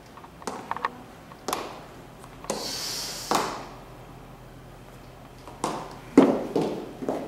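Footsteps on a staircase: a few scattered steps and knocks, a brief hiss about three seconds in, then a quicker run of firm steps in the last couple of seconds.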